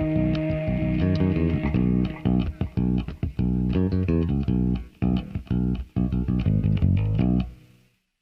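Electric bass guitar playing a line of short plucked notes through the PA during a sound check; the notes stop and die away near the end, after which the sound cuts to silence.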